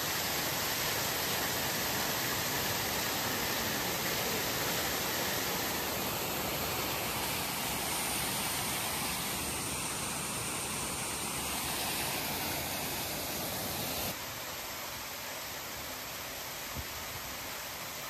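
Fountain water spilling over a curved overflow rim in a steady rush, a little quieter from about fourteen seconds in.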